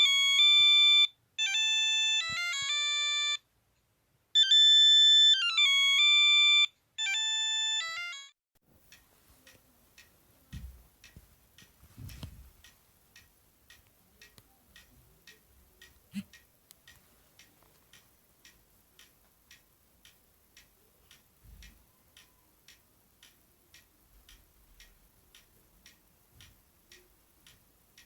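Sony Ericsson W595 mobile phone playing its synthesized startup melody through its small loudspeaker, in four short phrases of bright electronic notes. The melody ends about eight seconds in, leaving faint regular ticking, about twice a second, and a few soft thumps.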